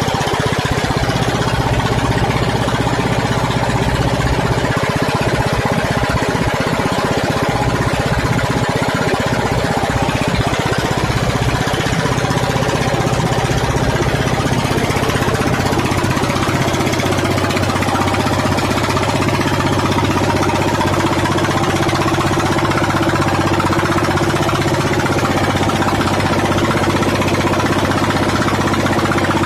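A fishing boat's engine running steadily with a fast knocking beat; its tone shifts a little about halfway through.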